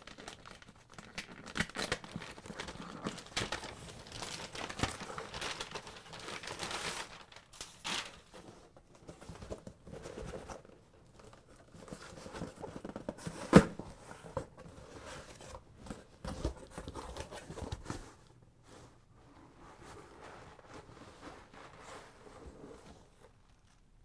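Cardboard box being torn open and its contents rustled and crinkled by hand, in irregular crackling bursts, with one sharp knock about halfway through. The handling quiets down for the last few seconds.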